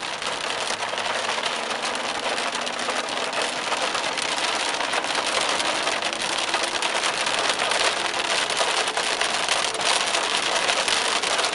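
Heavy thunderstorm rain pelting a car's roof and windows, heard from inside the moving car: a dense, steady patter of countless drop impacts that grows slightly louder.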